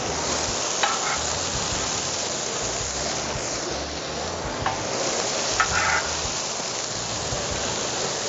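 Burger patties and sliced mushrooms sizzling steadily on a hot gas plancha, a flat-top griddle at about 400 degrees. A few short clicks come about a second in and again around five to six seconds in.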